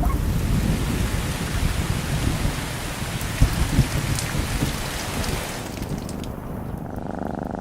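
Rain falling with a steady hiss over a low rumble, a few drop ticks standing out; the hiss thins in the last couple of seconds.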